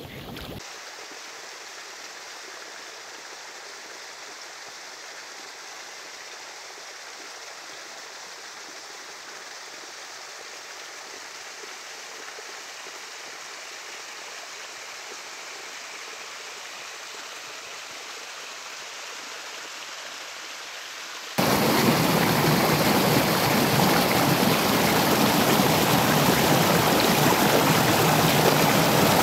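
Running water: a small stream trickling down a hillside as a thin, steady rush, then, about three-quarters of the way through, an abrupt switch to the much louder, fuller rush of a mountain stream cascading over rocks.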